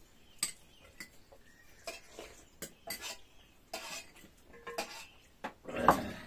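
Cutlery clinking and scraping against plates and bowls during a meal: irregular short clinks, with a louder, longer knock about a second before the end.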